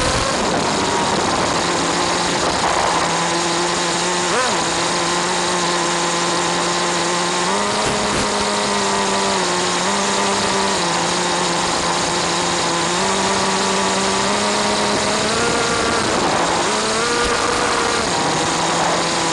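Small two-stroke RC car engine running, its pitch stepping up and down, under a steady hiss of static from the wireless camera link.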